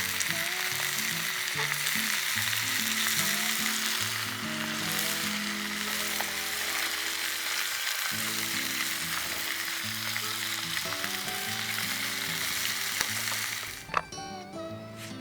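Food frying with a steady sizzle over quiet acoustic guitar music. The sizzle cuts off suddenly near the end, leaving only the music.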